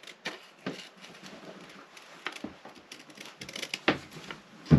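Scissors snipping through a sheet of paper: a handful of short, irregular snips, with a louder knock near the end.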